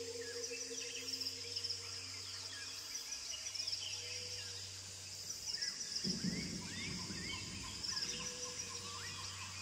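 Tropical forest ambience: many birds giving short rising chirps over a steady high insect drone. A soft low sustained tone fades out in the first few seconds, and a brief rough low sound comes about six seconds in.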